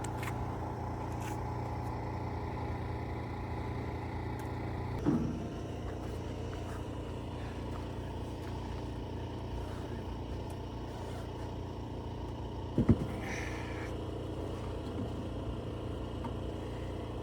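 Lamborghini Huracan Evo's V10 engine running steadily at low revs as the damaged car is moved slowly. About thirteen seconds in there is one short, loud sound.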